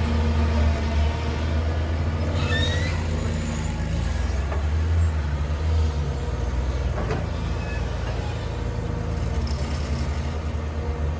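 Heavy machine's engine running steadily with a low pulsing rumble. There is a brief rising squeal about two and a half seconds in, and a couple of short knocks later on.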